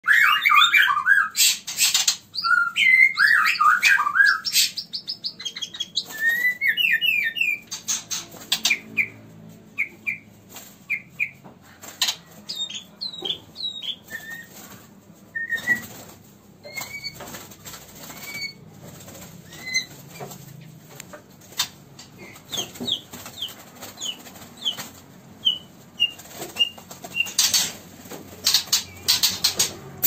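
White-rumped shamas in a breeding cage: loud whistled song phrases for the first several seconds, then scattered short whistled notes, among repeated wing flutters and hops, with a burst of flapping near the end. The male is courting the female.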